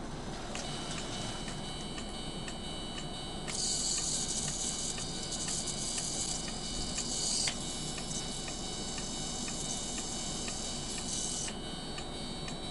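O-gauge model railroad crossing signal ringing its electronic warning bell, a regular ding about twice a second over a steady high tone. From about three and a half seconds in until near the end, a loud high hiss runs over it.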